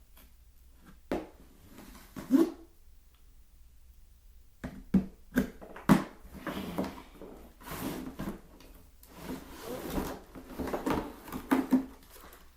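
A cardboard box and the plastic packaging of a toy blaster being handled: a few sharp knocks and clacks, then several seconds of rustling and scraping as the blaster is worked out of the box.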